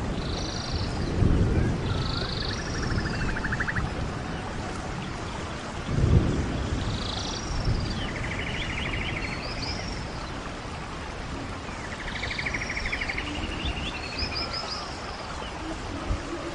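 Animal calls over a low rumbling noise, heard as repeated short arching chirps and buzzy trills in a rainforest-like ambience. The rumble swells briefly about a second in and again about six seconds in.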